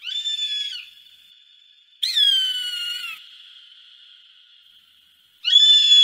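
A bird of prey giving three drawn-out, high whistled calls, each lasting about a second. The middle call starts with a falling slur. A faint steady whistle-like tone hangs between the calls.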